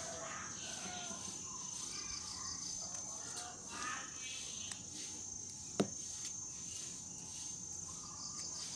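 Steady high-pitched insect chirring, with faint voices in the first few seconds and one sharp click a little before six seconds in.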